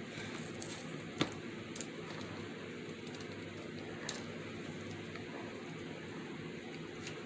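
A few light, sharp clicks and taps from craft supplies being handled on a tabletop, the loudest about a second in, over a steady low room hiss.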